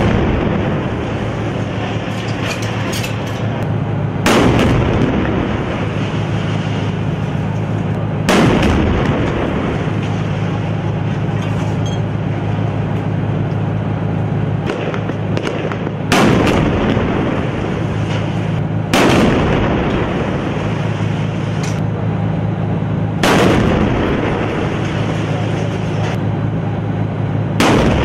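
Heavy gun blasts from direct-fire shelling of buildings, most likely tank rounds: six loud reports at uneven intervals, each trailing off in a rumble, over a steady low drone.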